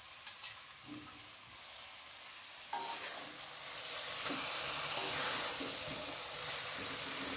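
A metal spatula in an aluminium wok of eggplant and fried eggs in chili paste: a few light clicks as the eggs are slid in. Then, after a knock nearly three seconds in, steady stirring and scraping over the food's sizzle, which grows louder.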